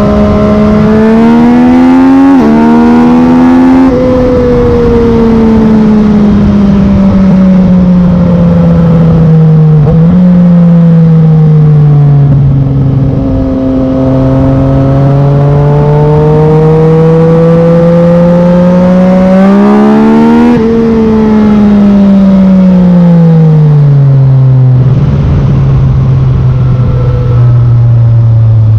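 Yamaha MT-09's inline three-cylinder engine through a Black Widow carbon full exhaust, ridden hard. Its note climbs under throttle, breaks sharply about two seconds in as a quickshifter upshift, and falls off throttle. It climbs again for several seconds, drops sharply about two-thirds of the way through, and settles into a steady low run near the end, with a rough rush of wind and road noise underneath.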